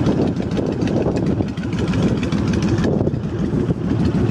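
A 2005 Honda VTX1300C's liquid-cooled 1300cc V-twin idling steadily through an upgraded aftermarket exhaust, an even low pulse. It runs smoothly, with no odd mechanical noise.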